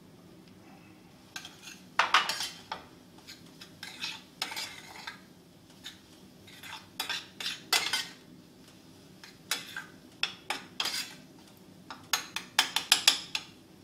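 Spoon stirring and scraping stuffing in a stainless steel sauté pan, clinking against the pan in irregular bursts every second or two.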